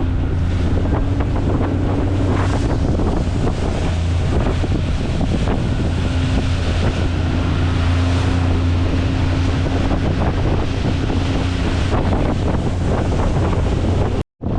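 Small fishing boat's motor running steadily under way, with wind buffeting the microphone and water rushing and splashing along the hull. The sound cuts out for a moment near the end.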